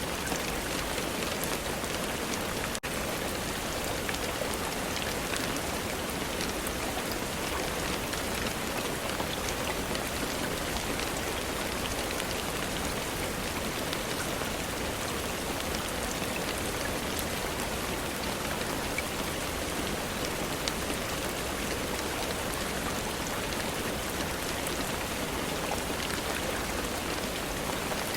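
Steady rain falling on a surface, an even hiss dotted with many small drop ticks, with a momentary dropout about three seconds in.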